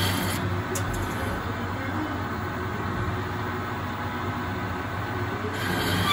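ProtoTrak CNC lathe running a single-point threading cycle on a steel hub at slow spindle speed: steady running of the spindle and drive, with the scraping, hissing noise of the cut. The cutting noise drops away about half a second in as the tool leaves the work and returns near the end as the next pass starts, the tool squealing slightly in the cut.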